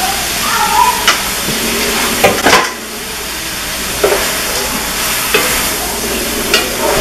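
Chopped zucchini and squash sizzling in a hot metal pot while being stirred with a wooden spoon, the spoon knocking against the pot about every second or so.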